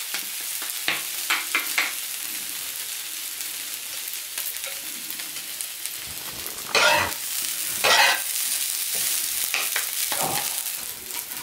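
Fried rice and udon noodles sizzling on the flat plate of a Severin KG 2397 electric teppanyaki grill, a steady high hiss. Spatulas tap and scrape on the grill plate throughout, with two louder scrapes about seven and eight seconds in.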